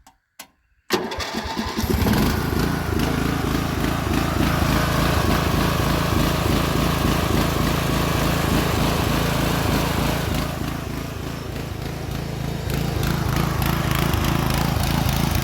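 Briggs & Stratton engine on a Murray riding mower starting about a second in and then running loudly, on a carburetor the owner says runs like junk. It dips briefly in level a little past the middle, then picks back up.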